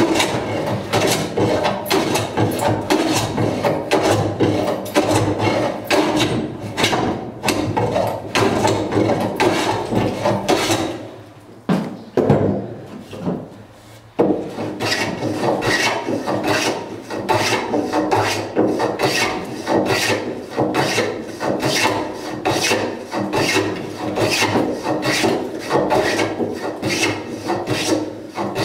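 Wooden hand plane shaving along a timber beam in quick repeated strokes, each a short rasping scrape of the blade cutting a shaving. The strokes pause for about three seconds midway, with a single stroke in the lull, then resume at the same pace.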